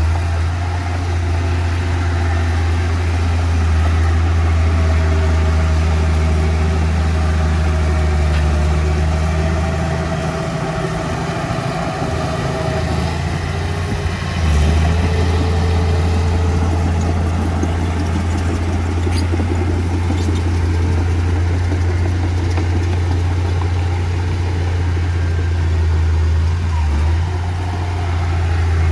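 Heavy diesel engine of earthmoving machinery running with a steady deep drone. The drone eases off about ten seconds in and comes back strongly about four seconds later.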